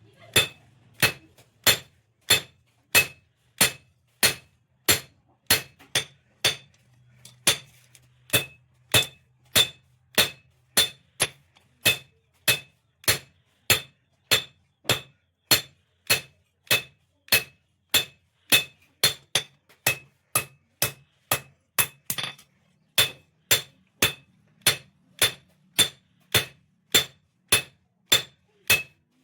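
Blacksmith's hammer striking metal on an anvil in a steady rhythm, about one and a half blows a second, each blow ringing, as the blade of a straight sickle is forged.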